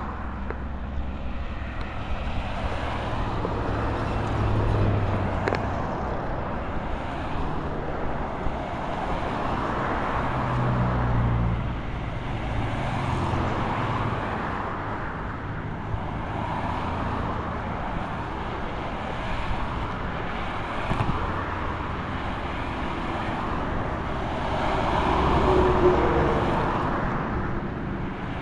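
Road traffic on a busy multi-lane road: cars and light trucks passing one after another in a continuous rumble, swelling and fading as each vehicle goes by, loudest near the end.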